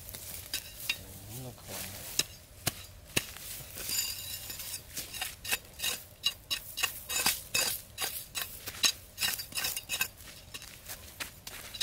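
Machete blade scraping and chopping at sandy ground and grass, short sharp strokes that come several a second from about four seconds in.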